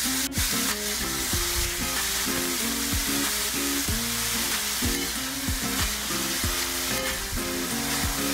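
Julienned burdock root (gobo) sizzling as it stir-fries in oil in a metal wok, stirred and turned with a utensil: the first sauté that softens the tough root. Light background music plays underneath.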